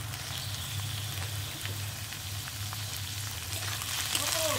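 Shelled jhinuk (oyster) meat sizzling as it fries in hot mustard oil with chopped onion in a wok, with small clicks of a metal spatula. The sizzle grows louder near the end as the pieces are stirred.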